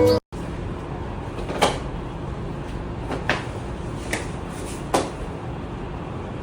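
Joints cracking during a chiropractic adjustment: four sharp, short pops spaced about a second apart, over a steady low hiss.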